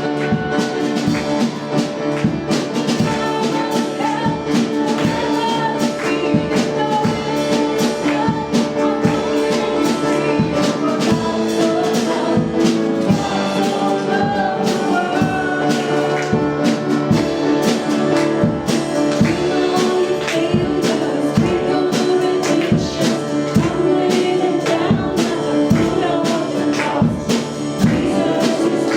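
Live worship music from a church band, with sustained instrument notes over a steady drum beat.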